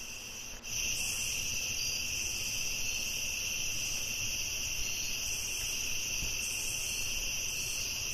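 Night-time cricket chorus, a steady high-pitched chirring that starts suddenly about half a second in and holds unchanged.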